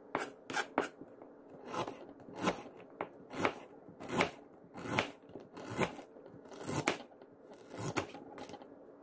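Chef's knife slicing through a knob of fresh ginger onto a plastic cutting board: about a dozen crisp cuts, roughly one every two-thirds of a second.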